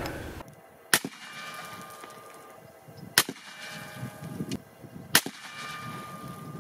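Three short, sharp gunshot cracks about two seconds apart, each trailed by a brief ringing tone.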